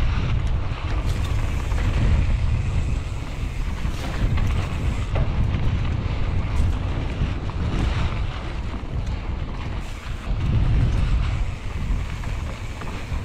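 Wind buffeting a GoPro Hero 9's microphone on a downhill mountain bike at speed, over the rumble of tyres rolling on a dry dirt trail, with scattered clicks and rattles throughout.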